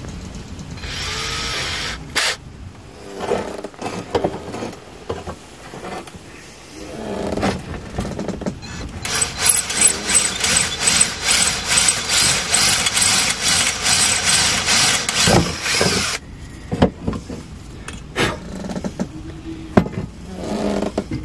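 Cordless drill boring into a steel bracket, the bit grinding and chattering against the metal. A short run about a second in, then a long run of about seven seconds from near the middle that stops suddenly, and a few short bursts near the end.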